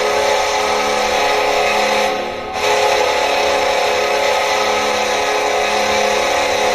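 Buffalo Sabres arena goal horn, played back from a recording: two long blasts, the second starting about two and a half seconds in.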